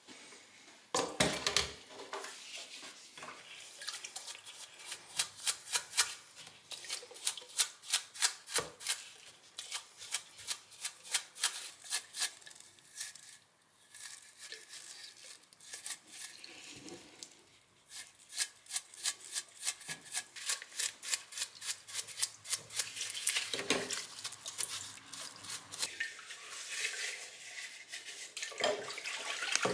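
A bristle brush scrubbing rusty steel vise parts under liquid in a plastic tub, in quick repeated strokes about three a second with splashing, pausing briefly a couple of times.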